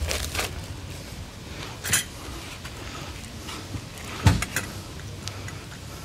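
Handling sounds as cubed raw beef is tipped and pushed from a foam tray into a small stainless steel pot: a few scattered knocks and clicks, the loudest a dull thump about four seconds in.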